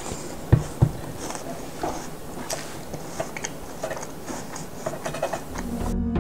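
Soft knocks and scattered light clicks and scrapes of a steel mixing bowl being handled as thick batter is poured into a metal baking tin. Two knocks come about half a second in; background music comes in near the end.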